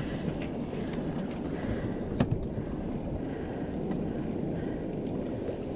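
Wind buffeting an action camera's microphone over water moving against a small boat at sea, a steady rushing noise, with one sharp knock about two seconds in.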